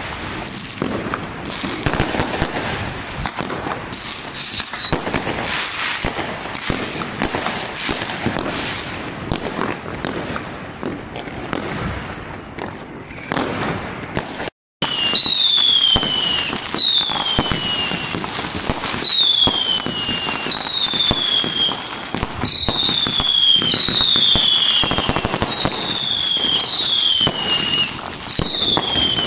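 Fireworks: a dense run of crackling, popping and bangs. After a brief cut about halfway through, whistling fireworks go off one after another, about every second and a half, each whistle falling in pitch, among further cracks and bangs.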